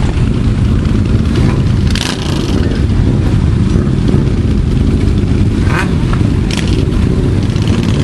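Many motorcycle engines running together at idle, a steady low mechanical sound, with a few short clicks or scrapes over it.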